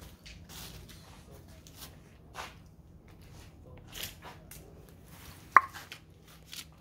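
Footsteps scuffing and crunching over debris-littered pavement, with scattered light clicks. About five and a half seconds in comes one much louder sharp clink with a brief ring.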